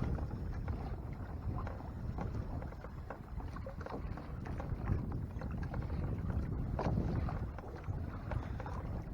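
Water sloshing and lapping against the hull of a Hobie Mirage Tandem Island sailing kayak, with wind rumbling on the microphone and scattered small clicks and knocks.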